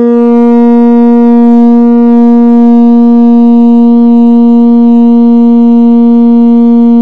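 A metal singing tube (Rijke tube), heated by a Bunsen burner, gives off a loud, steady low note rich in overtones. The heat drives the air column inside the tube.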